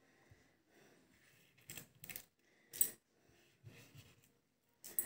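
A scatter of short, light clicks and taps, the sharpest about three seconds in: peeled hard-boiled eggs and bits of eggshell being handled on a wooden cutting board.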